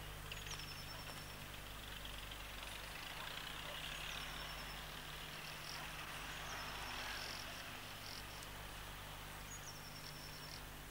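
Distant British Rail High Speed Train running past: a faint rushing noise that swells in the middle and fades toward the end. A short high chirp repeats about every three seconds, over a steady low electrical hum.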